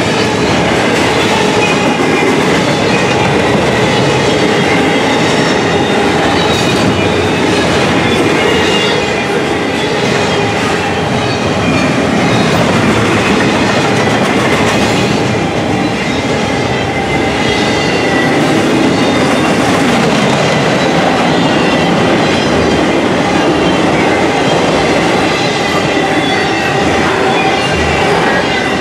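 Double-stack intermodal container cars rolling past at close range: a loud, steady rumble of steel wheels on rail with rhythmic clickety-clack over the rail joints and a few thin steady tones above it.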